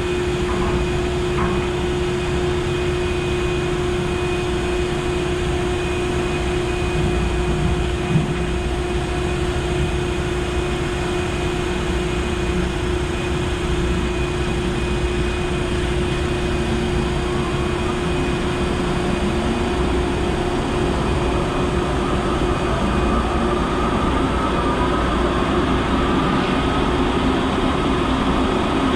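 Log truck's diesel engine running, with a steady drone and constant whine. About two-thirds of the way through, the engine note rises as the truck pulls away or picks up speed.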